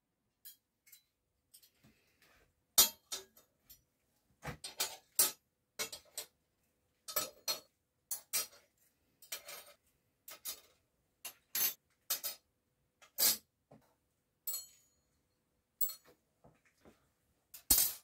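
Stainless-steel spoons being set down one by one on a steel workbench: a long, irregular run of sharp metallic clinks and clacks, some louder than others.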